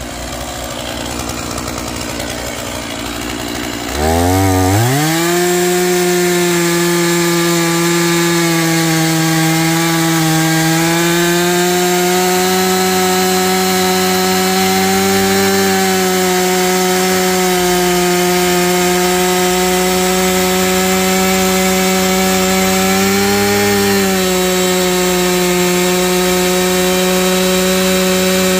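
Stihl MS461 two-stroke chainsaw running quietly at first, then revving up sharply about four seconds in and holding a steady high-rpm note as it cuts through a log, with slight dips and rises in pitch as it works.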